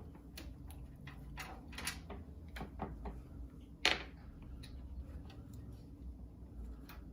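Irregular light clicks and taps of a PC case's tempered-glass side panel being unfastened and handled, with one sharper knock about four seconds in.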